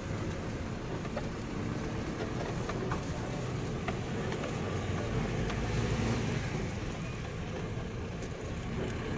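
A vehicle on the move: steady low engine hum with road rumble and a few faint rattles.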